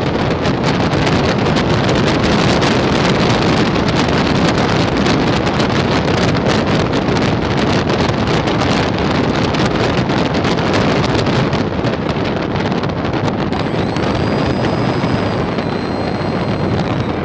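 Rushing wind on the microphone of a phone camera mounted on an RC airplane in flight, a steady loud airflow noise. A faint high steady tone appears in the last few seconds.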